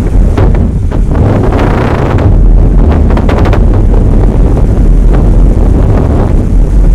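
Wind buffeting the microphone, a loud, steady low rumble with a brief run of small clicks about three seconds in.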